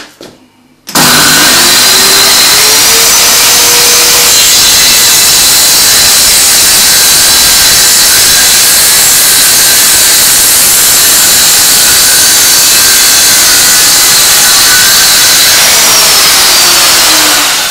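Large electric power saw cutting through a hard, heavy old oak plank. It switches on about a second in and its motor winds up over the first few seconds. It then cuts loudly and steadily, and winds down near the end.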